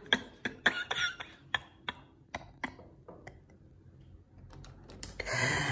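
Light knocks and taps on the glass panes of a locked French door, a quick run of sharp clicks that slows and thins out, with faint muffled talk through the glass. About five seconds in, a click and a sudden rise of outdoor background noise as the door is opened.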